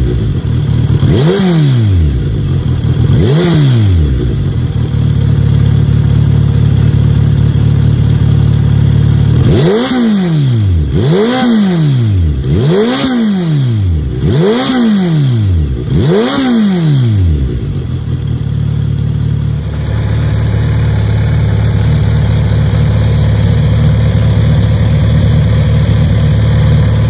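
Kawasaki Z900RS Cafe's inline-four engine running through an Over Racing GP-Performance aftermarket exhaust, stationary at idle with throttle blips. Two blips near the start, then five quick blips in a row about halfway through, each a sharp rise and fall in pitch, before it settles back to a steady idle.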